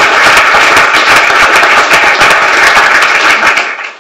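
Audience applauding: dense, steady clapping that fades out near the end.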